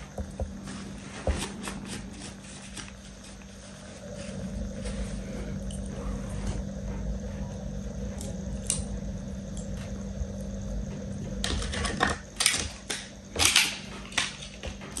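Small handling noises over a steady low hum: faint rustling and soft ticks, then a quick cluster of sharp clicks and taps near the end.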